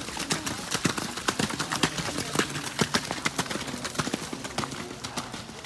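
Hooves of several ridden ponies trotting on wet, muddy arena footing: a quick, uneven stream of hoofbeats that splash and slap as they strike.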